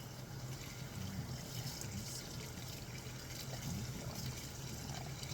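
Tap water running and trickling in a sink as shampoo is rinsed out of a cat's fur.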